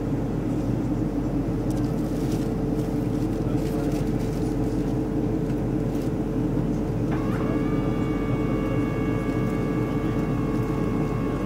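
Steady engine and airflow noise heard inside a jet airliner's cabin in flight. About seven seconds in, a higher steady whine joins the roar and holds to the end.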